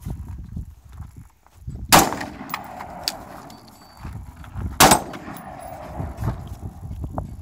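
Two rifle shots from a scoped rifle fired off a shooting bench, about three seconds apart, each followed by a rolling echo.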